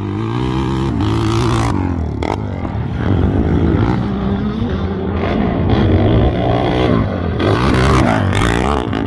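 Old Honda XR four-stroke single-cylinder dirt bike engine revving hard, its pitch rising and falling again and again as the rider opens and shuts the throttle and shifts gear, in a few short shots.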